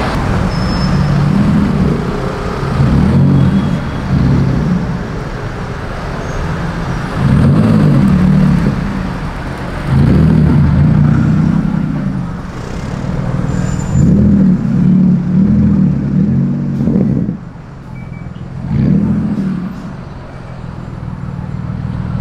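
City street traffic: car engines running and passing, with a steady low engine hum and louder swells every few seconds.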